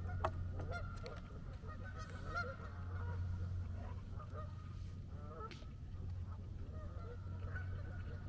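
A flock of geese honking, many short calls overlapping and repeating throughout.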